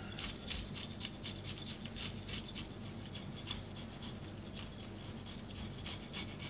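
Kitchen knife cutting and scraping at a raw herring on a plastic cutting board: a quick run of short crisp scratchy crunches, thick at first and thinning out about halfway through.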